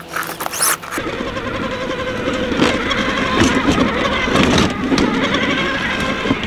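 Scale RC rock crawler's electric motor and gears whining as it climbs over rock, with the tyres scraping and clicking on the stone.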